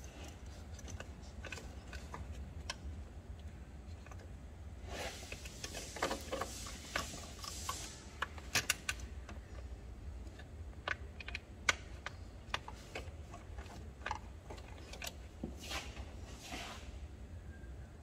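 Scattered light clicks and clinks of hand tools at work in an engine bay, as a mechanic works on bolts with a T30 Torx bit. There are short scraping, rustling patches about five to eight seconds in and again near the end, over a low steady hum.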